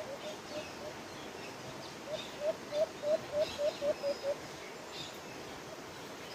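White-eared brown dove calling: a run of about nine short, rising hoots that come slightly faster as it goes, about two seconds in, after a fainter run of the same notes at the start. Small birds chirp higher up throughout.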